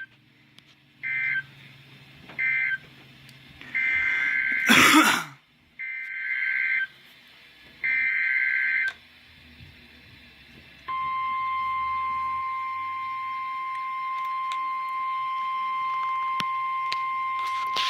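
NOAA Weather Radio Emergency Alert System data: two short bursts of the digital end-of-message signal, then three one-second bursts of SAME header data, a buzzing two-tone screech, with a loud crackle of noise during the first header burst. About two seconds after the last burst the steady 1050 Hz weather radio warning alarm tone starts and holds, announcing the next warning.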